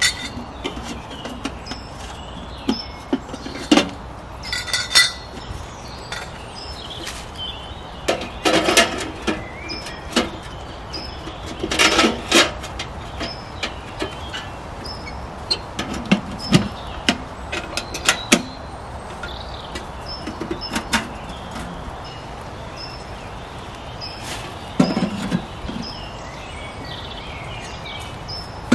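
Scattered knocks, clicks and clinks of objects being handled, over a short high chirp repeating about once a second.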